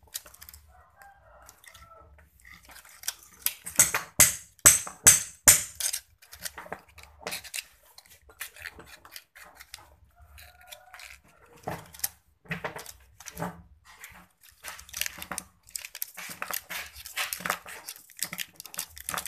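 Sharp metallic clicks and snips of a hand cutter working the copper winding wire ends at a power-tool armature's commutator, with handling of the armature between them. The loudest run of quick clicks comes about four to six seconds in, and another cluster near the end.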